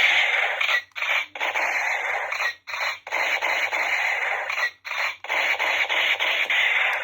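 Toy gun's electronic firing sound effect: a harsh hiss from a small speaker, in about five bursts with short breaks between them.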